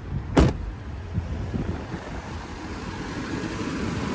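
2006 Range Rover Sport engine idling steadily while K-Seal head gasket sealant circulates, running without overheating. A single sharp thump about half a second in, as the car door swings shut.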